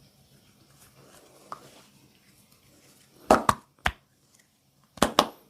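Sharp slaps of hands striking a body in massage: three in quick succession a little past halfway, then two more near the end.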